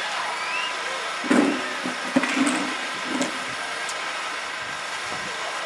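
Steady open-air background noise, with a few brief distant sounds between about one and three seconds in, among them a sharp knock just after two seconds.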